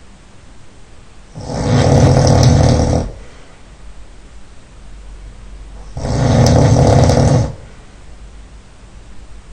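A man snoring loudly: two long snores about four and a half seconds apart, each lasting about a second and a half, with a much quieter stretch between them.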